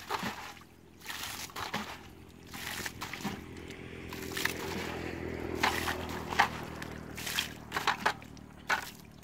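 Muddy puddle water sloshing and splashing as a plastic bucket is dipped in and the water thrown out over and over, bailing the puddle dry. The splashes come about once a second and are loudest in the second half.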